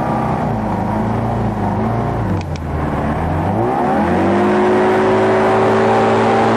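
Hovercraft engine running: the revs drop about two seconds in, then climb again around four seconds and hold steady higher. Two brief clicks sound in the dip.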